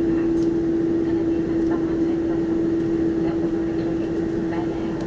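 Steady cabin drone inside a taxiing Boeing 747-400, from the engines at taxi power and the cabin air, with one constant humming tone running through it.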